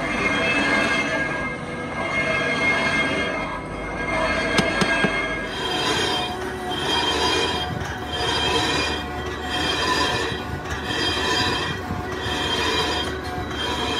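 Shrill metal-on-metal squeal from factory metalworking machinery: several steady high tones that swell and fade about every second and a half. The pitch shifts about five and a half seconds in.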